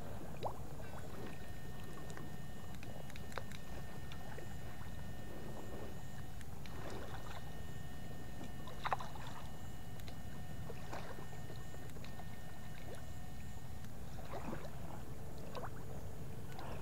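Water sloshing and splashing in a shallow pond as someone moves through it, with a few sharper splashes over a steady low rumble.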